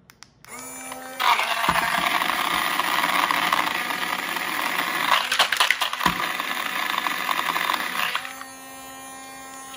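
Gevi battery-powered portable blender motor spinning up, then ice cubes and water rattling and churning loudly in the plastic jar for about seven seconds. The ice is mostly being swirled around rather than crushed. About eight seconds in the rattling stops, and the motor runs on more smoothly before winding down near the end.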